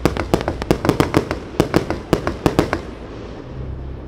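Aerial fireworks bursting in a rapid series of sharp bangs and cracks, about five a second, dying away about three seconds in.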